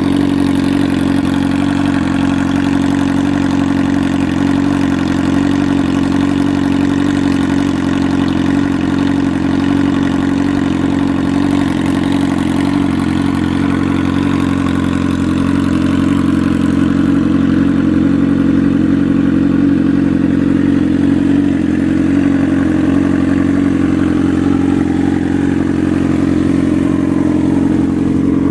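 Motorcycle engine idling steadily at an even, unchanging pitch.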